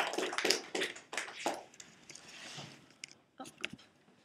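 Small audience clapping, dying away within the first second and a half, then a few faint clicks.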